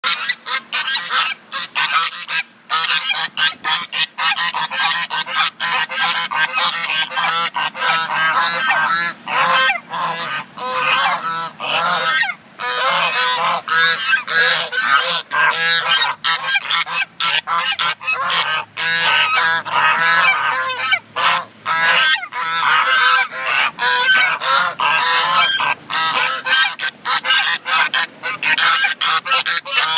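A flock of geese honking, many birds calling at once in dense, overlapping honks that go on almost without a break.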